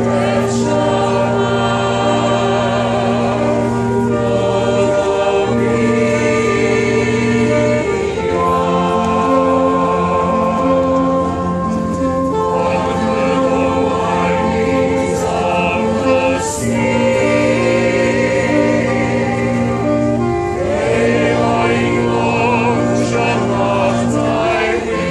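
A brass band of sousaphone, saxophones, trumpets and trombone plays long held chords under a group of singers. The sung notes waver over a steady low bass line, which breaks off briefly twice.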